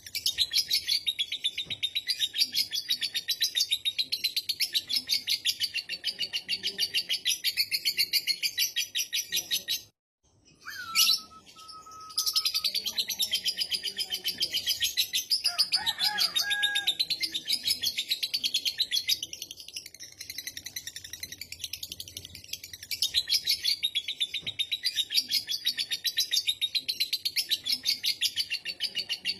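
Lovebird ngekek: a long, rapid chattering trill of fast repeated high notes. It breaks off briefly about ten seconds in, gives a single sharp call, then resumes.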